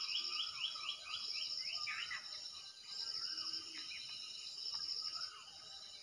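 Outdoor birdsong: a bird sings a quick run of falling notes in the first two seconds, with other scattered calls, over a high pulsing trill that comes in bouts about a second long.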